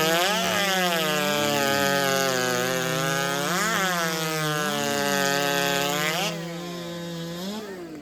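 Big-bore racing chainsaw of the over-90cc class running flat out through a log in a timed cut, its pitch dipping briefly a few times as it loads in the wood. A little after six seconds the cutting noise drops away, and near the end the engine revs fall off.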